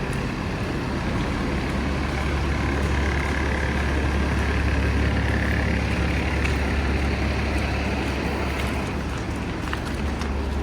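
Steady low engine rumble of a large road vehicle, such as a truck or bus, running close by in street traffic, with a faint higher whine in the middle.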